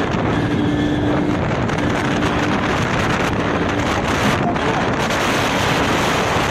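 Steady rush of wind and road noise from a vehicle moving at speed, with wind buffeting the microphone.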